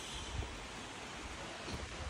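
Steady outdoor hiss with light wind buffeting on the microphone, a soft low rumble about half a second in.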